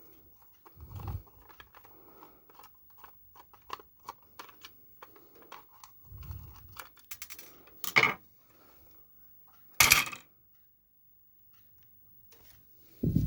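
A small screw being worked out with a screwdriver and the device's casing handled and opened: a run of light clicks and scrapes, two soft bumps, and two sharp clicks in the second half, about two seconds apart.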